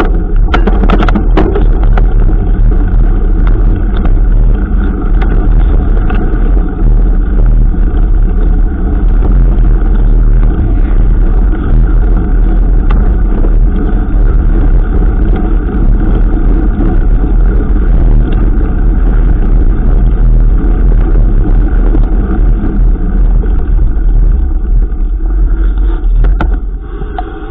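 Steady, loud wind rumble on a mountain bike's camera microphone while riding, with scattered small clicks and rattles from the bike. It eases off slightly near the end.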